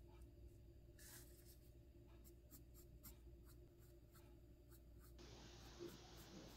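Faint scratching of a pencil tracing letters on paper, in short irregular strokes.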